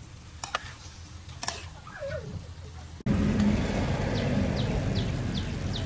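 A metal spatula clicks and scrapes against a wok of stir-frying beef and herbs. About three seconds in, the sound jumps to a much louder steady low rumble and hiss from the gas stove and frying pan. Over it comes a run of short, high, falling bird chirps, about two or three a second.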